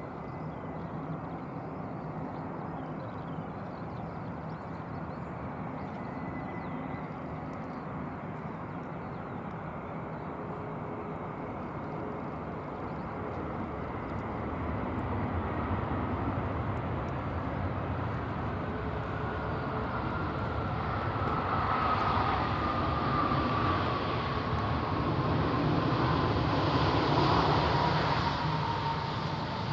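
Qatar Airways Airbus A350-900's Rolls-Royce Trent XWB turbofans passing by, a rushing jet noise that builds over the second half. A whine slides steadily down in pitch as the aircraft goes past.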